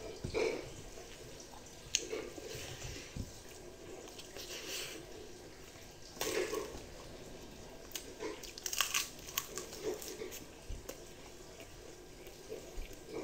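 Close-up eating sounds: fingers squishing and mixing rice with fried egg on a plate, and chewing with scattered short crunchy clicks.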